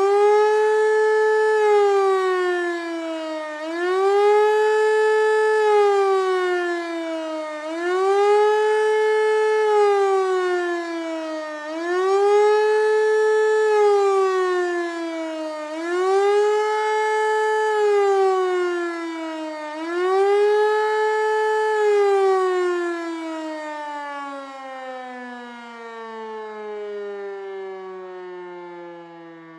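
German civil-defence siren test sounding the rising-and-falling warning signal: the pitch climbs quickly, holds for about two seconds and falls away, repeating about every four seconds, six times. From about 22 seconds in the siren winds down, its pitch sliding steadily lower as it fades.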